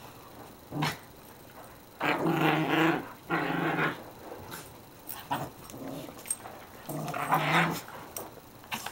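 Dogs play-wrestling, growling in several bursts of up to about a second each, the longest about two seconds in and again near the end.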